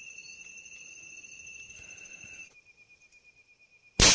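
Steady high-pitched insect trilling, like crickets; about two and a half seconds in the louder trill stops and a fainter one carries on. Right at the end, a single loud black-powder gunshot.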